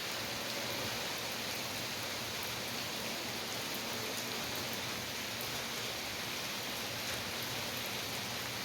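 Steady rain falling: an even hiss of rain with faint scattered drop ticks.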